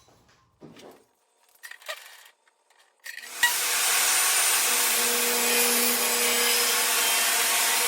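A few light handling knocks and clicks, then about three and a half seconds in a table saw starts up suddenly and runs steadily and loudly, a constant hiss with a steady motor hum under it.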